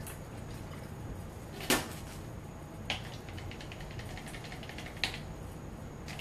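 White acrylic paint thinned with water being stirred in a plastic cup: a fast, even scraping patter of the stirrer against the cup from about three seconds in, with a sharp knock just before two seconds and a couple of lighter clicks.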